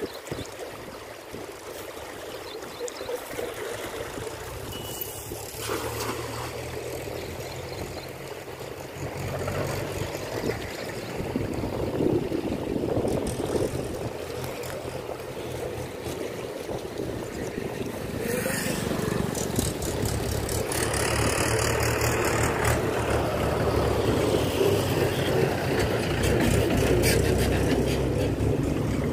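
Stream water rushing steadily, with a vehicle engine idling in the background that comes in a few seconds in and grows louder in the second half.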